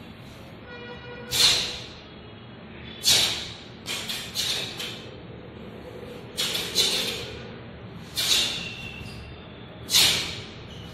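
A group of taekwondo students doing punching drills in unison, with about eight loud, sharp bursts of sound that come with the strikes, some in quick pairs, each ringing briefly in a large, bare room.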